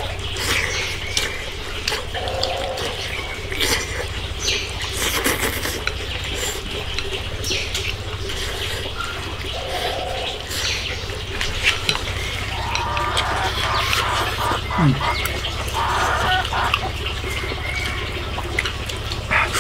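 Wet chewing and lip-smacking of someone eating soft braised pork with rice, with scattered short clicks like chopsticks against a bowl. A steady low hum runs underneath.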